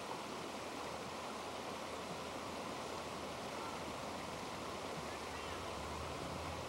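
Mountain stream running over rocks and a small cascade: a steady, unbroken water noise.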